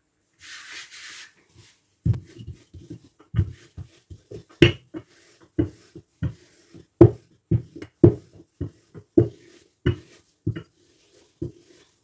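Wooden rolling pin rolling out thin pastry dough on a wooden worktop. It starts about two seconds in as a rumble with a knock at each stroke, about two a second. Before it comes a brief soft hiss of flour being sprinkled over the dough.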